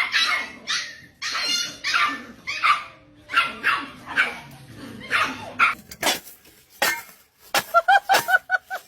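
A dog barking and yipping in a string of short calls, with a quicker run of yips near the end.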